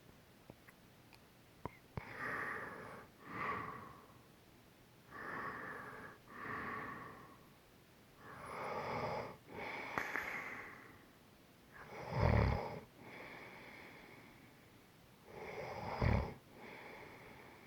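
A person snoring in sleep: slow breaths in and out, a pair about every three and a half seconds. The snores about two-thirds of the way through and near the end are deeper and louder.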